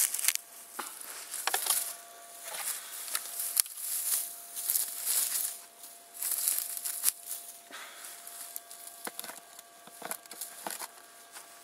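A hand digger scraping and chopping into dry grassy soil, with irregular rustling of dry grass and leaves and short knocks and clicks, over a faint steady tone.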